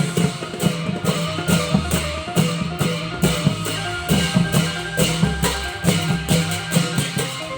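Thai klong yao long-drum ensemble playing: quick, regular drum strokes with bright metallic hits, over held pitched melody notes and a low bass line.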